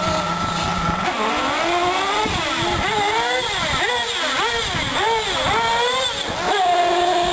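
Small nitro engine of a Team Associated SC8 1/8-scale short-course R/C truck revving up and down under throttle, its high buzzing pitch rising and falling about once a second, then holding steadier near the end.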